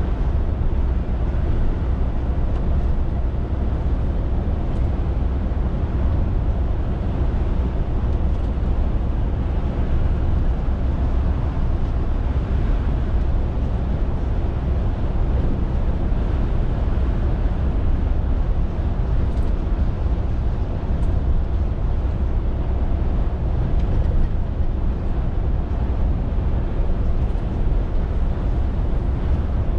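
Scania R450 lorry's 13-litre six-cylinder diesel on the move: a steady low engine drone mixed with road noise, holding an even pitch throughout.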